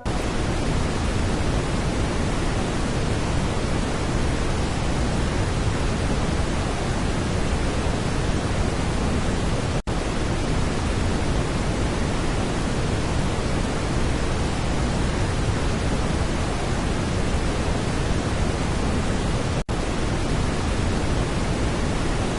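Steady rushing noise of a relaxing nature-sound background track, even and unchanging. It cuts out for an instant twice, about ten seconds apart, where the track loops.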